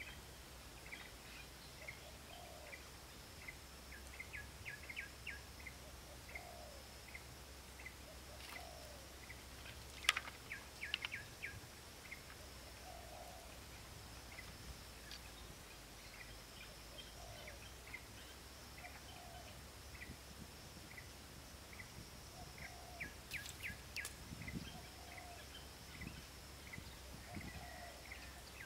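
Outdoor ambience of small birds chirping in short repeated clusters, with a lower call recurring every second or two over a faint steady high insect drone. There is a sharp click about ten seconds in, followed by a few lighter clicks, and another short run of clicks near the end.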